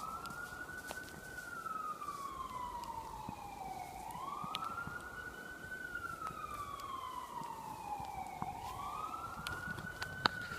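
Emergency vehicle siren in wail mode, its pitch climbing quickly and then sliding slowly down, repeating about every four seconds. A few short clicks, the sharpest near the end.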